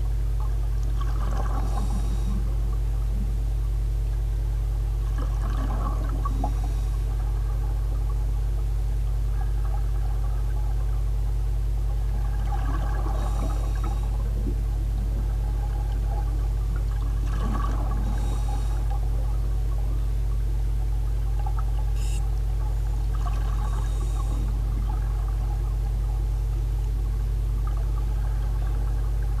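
Scuba diver breathing underwater through a regulator: five breaths about every five seconds, each a gush of exhaled bubbles with a hiss. A steady low hum runs underneath.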